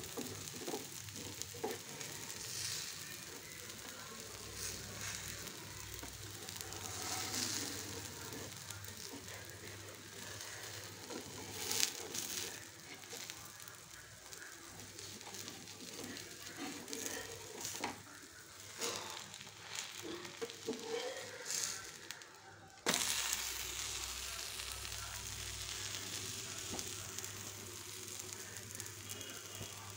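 Pesarattu (green gram dosa) sizzling on a hot tawa: a steady frying hiss with a few sharp taps, the loudest about twelve seconds in. The sizzle jumps suddenly louder a little before two-thirds of the way through.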